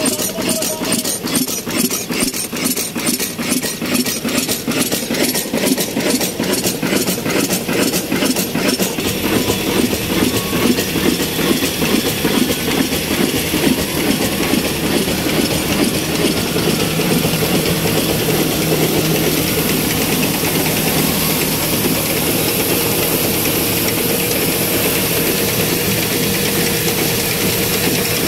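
Old 22 HP diesel oil engine running and driving machinery through long flat belts and pulleys, a fast, even beat. About a third of the way through the separate beats blur into a steadier, slightly louder rush with a low hum.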